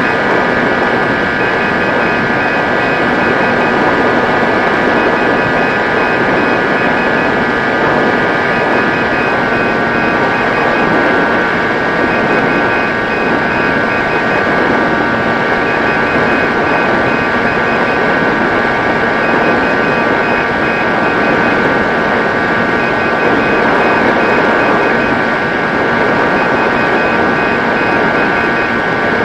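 Electric motor and propeller of a Mini Drak 90 cm RC flying wing running steadily in flight, a high whine over a constant rush of air noise, the whine dropping slightly in pitch about nine seconds in.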